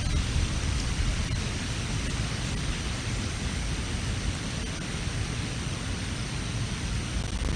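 Strong wind buffeting the outdoor nest-camera microphone: a steady rushing hiss with a gusty low rumble that rises and falls.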